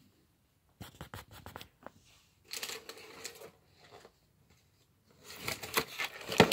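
Close rustling and scratching handling noise, with a quick string of small clicks about a second in and louder scratching and clicks near the end.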